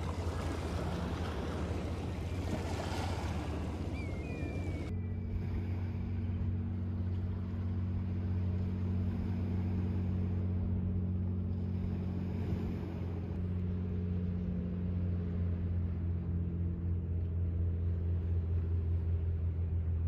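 A boat's engine running at a steady drone, with wind and water noise over it for the first few seconds. A short falling whistle sounds about four seconds in.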